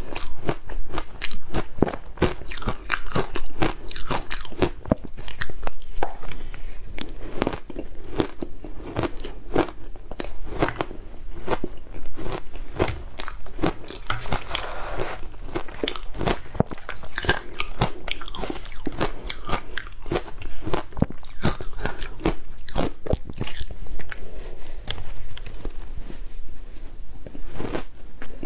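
Close-miked crunching and chewing of frozen shaved ice, with dense, irregular crunches one after another.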